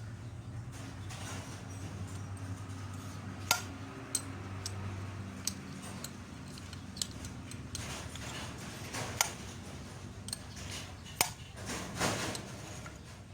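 Scattered sharp metal clinks as steel engine valves are handled and slid into the valve guides of a 4D56 cylinder head, over a steady low hum.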